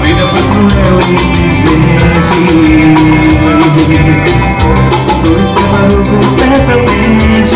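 Live band music with a drum kit keeping a steady beat under sustained melodic instruments.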